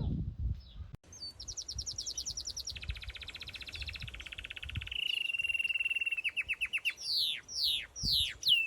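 A bird calling: fast, even high trills that step down in pitch, then a string of loud whistles, each sweeping steeply downward.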